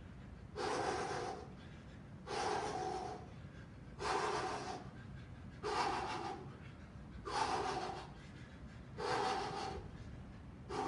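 A man breathing hard from the exertion of a fast-punching shadowboxing interval: loud, even breaths, one about every one and a half to two seconds.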